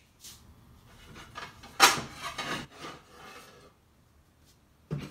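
Kitchen cupboard sounds as a plate is fetched: a sharp knock about two seconds in, then a second or so of rubbing and scraping, and a short knock near the end.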